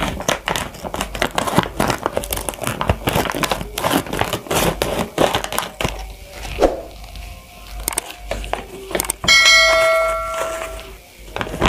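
Thick plastic rice bag crinkling and crackling as it is cut open with scissors and handled. About nine seconds in, a bright bell chime rings for about a second and a half: a subscribe-notification sound effect.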